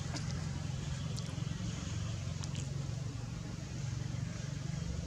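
Steady low outdoor rumble, with a few faint short high chirps.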